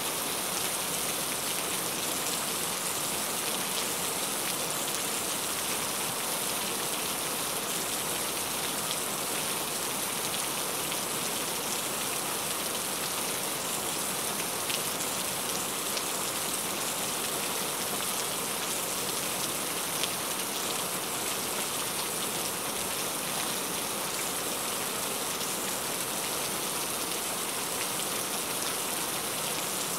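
Heavy rain falling steadily, an even hiss of many drops, with a couple of sharper single drop hits near the middle.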